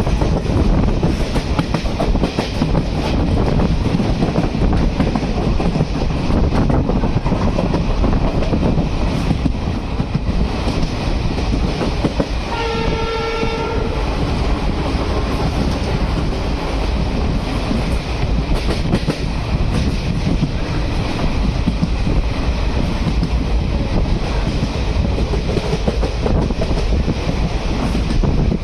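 A passenger train running on rails, with a steady rumble and wheel clatter. Its horn sounds once, for about a second and a half, a little before halfway through.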